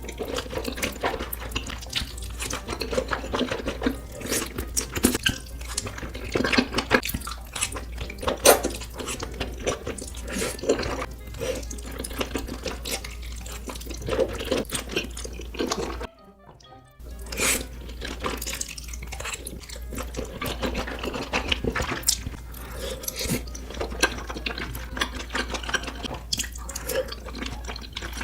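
Close-miked mukbang eating sounds: a person chewing big mouthfuls of food, with many irregular wet mouth clicks and smacks. The sound drops out for about a second some sixteen seconds in, then the eating goes on.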